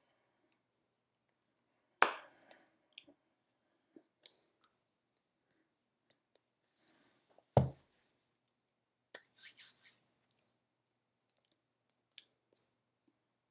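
Sporadic hand slaps and clicks from a person signing in sign language. Two sharp slaps stand out, about two seconds in and just past the middle, with a brief rustling cluster a little later and small ticks in between.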